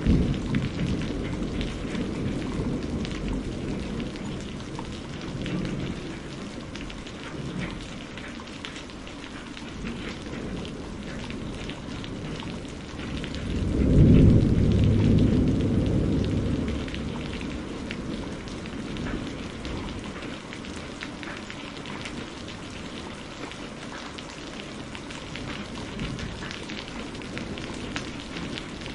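Steady heavy rain, with many drops splattering. Thunder rumbles twice: a dying roll in the first couple of seconds, and a louder roll about halfway through that fades over about three seconds.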